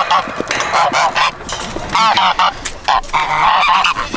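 Domestic geese honking: many short, loud calls overlapping one another, with scattered clicks and knocks among them.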